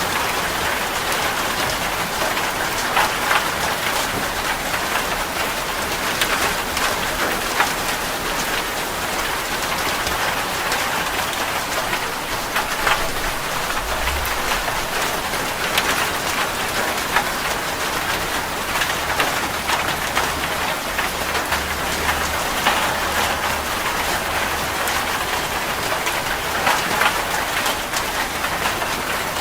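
Heavy rain falling steadily on a metal roof, a dense hiss of many drops with sharper individual drop ticks throughout. A faint low rumble comes in about halfway through.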